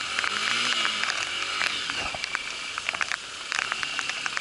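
Rain striking the camera housing in an irregular spatter of sharp ticks and crackles over a steady hiss of rain and spray off the wet road.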